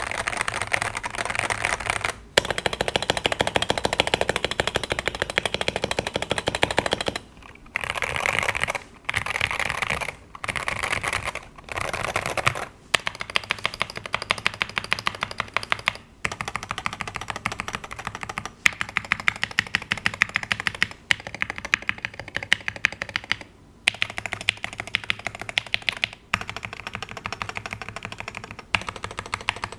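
Continuous fast typing on a Wooting 60HE keyboard with Gateron Lekker magnetic switches and stock PBT keycaps, in a Tofu 60 Redux tray-mount case with foam, tape and o-ring mods for a softer sound. Keystrokes come densely in runs of a few seconds, broken by brief pauses.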